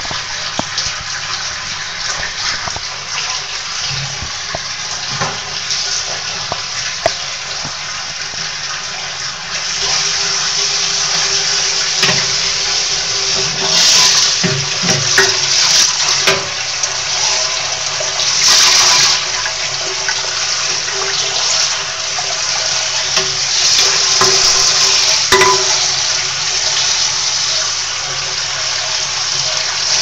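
Water churning and sloshing in the tub of a 1940–1950 Hoover wringer washing machine while it runs a wash, with a steady hum underneath. The churning grows louder about ten seconds in.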